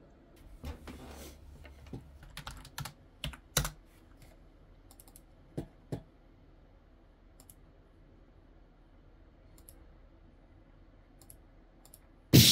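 Computer keyboard keys clicking irregularly, in scattered clusters of keystrokes that thin out to a few faint clicks. A short loud burst comes near the end.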